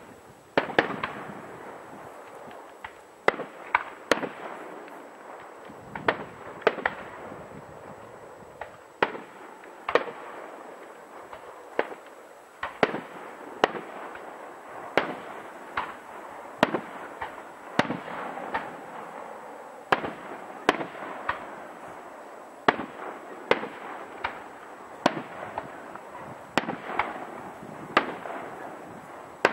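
Aerial firework shells bursting in a display: a steady run of sharp bangs, about one every second or two, each trailing off, over a continuous noisy haze.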